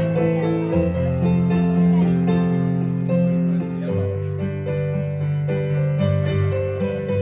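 Instrumental keyboard music: sustained chords and a slow melody, the notes changing every half second or so.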